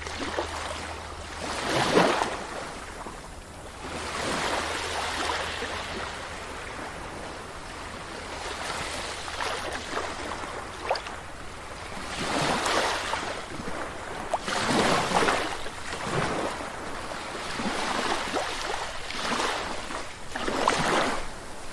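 Sea waves breaking and washing up a beach, the rush swelling and falling every few seconds.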